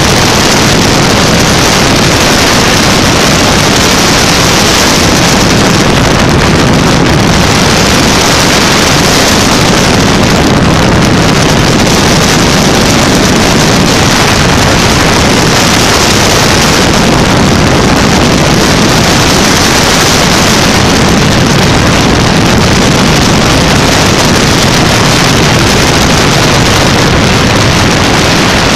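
Loud, steady wind rushing over an action camera mounted on the outside of a Zlin Savage ultralight, with the aircraft's engine and propeller running underneath.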